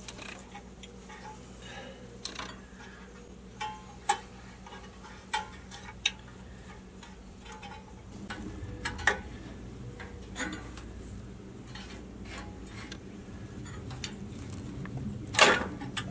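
Scattered light metallic clicks and clinks of hand work on a small tiller engine, as its throttle linkage is being unhooked, with a louder clack near the end.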